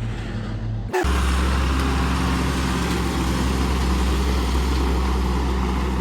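Heavy diesel engine of earthmoving equipment running steadily with a deep, even drone. About a second in the sound cuts abruptly to a louder, steady engine run.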